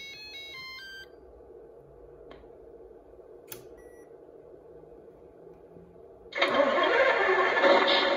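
A quick run of electronic beeps at different pitches as the model's electronics power up, then a faint hum with a couple of clicks. About six seconds in, a simulated truck diesel engine from the RC sound module's speaker starts suddenly and settles into a steady idle.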